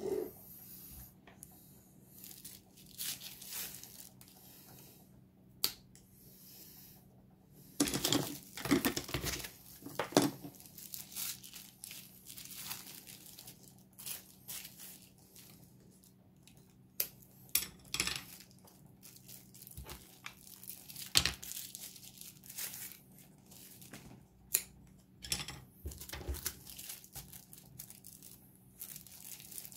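Plastic packaging crinkling and tearing in irregular bursts, with scattered sharp clicks, over a faint steady hum.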